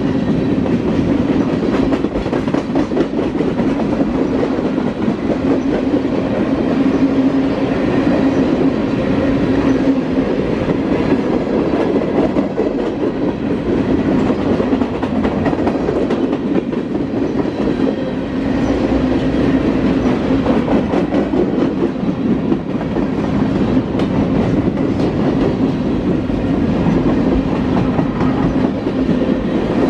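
Freight cars (flatcars, a gondola, boxcars and tank cars) rolling past close by: a steady rumble of steel wheels on the rails, with repeated clicks as the wheels pass over the track.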